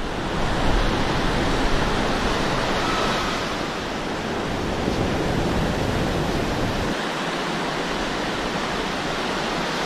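Surf washing onto a sandy beach: a steady rush of small breaking waves, with the low rumble easing about seven seconds in.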